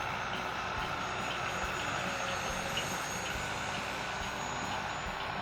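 64mm electric ducted fan of a small RC sport jet in flight: a steady rushing whine with a faint high tone that drifts slightly in pitch.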